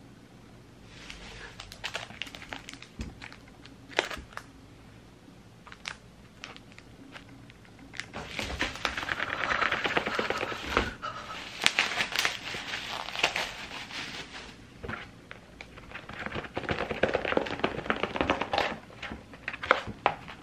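Plastic packaging handled close up: bubble wrap and plastic sleeves crinkling and crackling with quick clicks and rustles. It starts about a second in and is densest from the middle onward.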